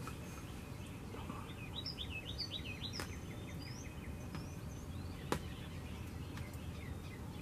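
Small birds chirping in a quick run of short calls that sweep down in pitch, over steady low background noise, with two sharp clicks about three and five seconds in.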